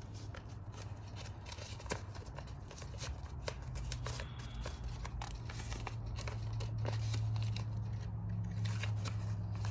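Small tied-up paper card being untied and unfolded by hand: light paper rustling and crinkling with many small, irregular clicks, over a steady low hum.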